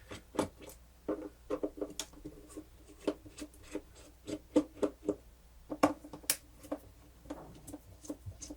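Small screwdriver turning screws out of a plastic cassette player's back plate: a run of small, irregular clicks and scrapes, a few of them sharper.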